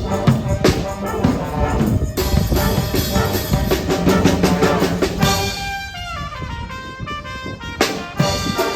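Music played on drum kit and brass instruments, an upbeat band tune. Around six seconds in the drums drop back and a falling run of notes plays before the full band comes back in.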